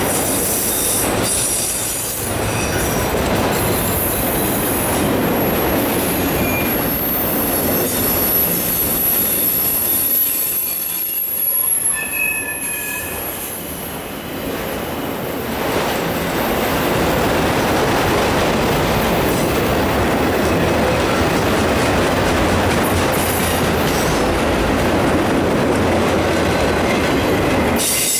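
Autorack freight cars rolling past on the rails: a steady rush of wheel noise, with a thin, high wheel squeal held for several seconds in the middle.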